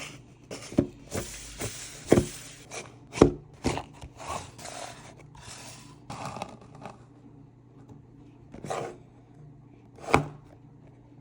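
Watch packaging being handled and opened: rustling and scraping with a string of sharp taps and knocks, the loudest a little after three seconds and about ten seconds in.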